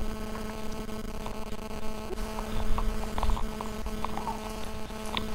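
A steady low hum with overtones that holds one pitch throughout, with faint small clicks and a brief low rumble about three seconds in.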